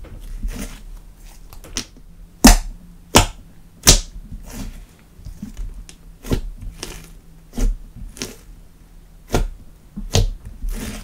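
Thick slime being pressed, folded and squeezed by hand, giving irregular sharp pops and clicks as air pockets burst, about a dozen in all, the loudest a few seconds in.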